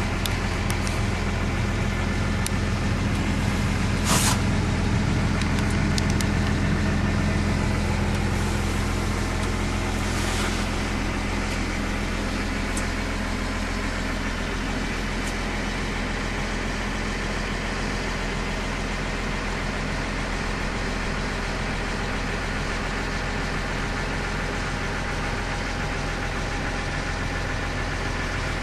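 Case IH Puma 155 tractor's six-cylinder diesel engine idling steadily, heard from inside the cab. There is a sharp click about four seconds in and a softer one about ten seconds in.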